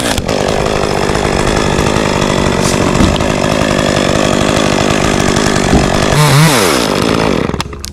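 Chainsaw engine running steadily at high revs. About six seconds in its pitch dips and climbs again, and near the end the sound falls away.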